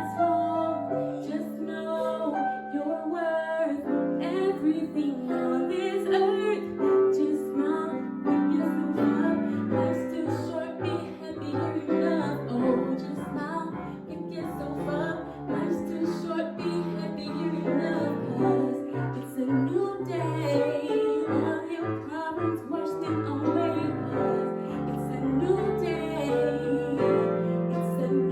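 Music: a piano-backed song with a woman singing.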